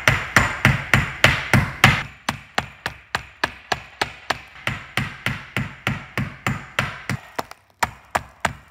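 One rock banged repeatedly against another rock, about three to four knocks a second, chipping off small pieces and grit. The knocks are loudest in the first two seconds and then grow softer, with a brief pause near the end.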